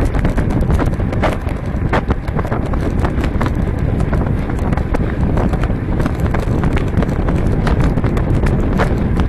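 Wind buffeting the microphone of a 360 action camera riding along on a road bike, over a steady rumble of tyres on the road. Irregular sharp clicks and knocks run through it.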